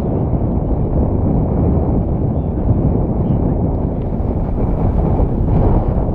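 Wind buffeting the microphone outdoors: a steady low rumble of noise.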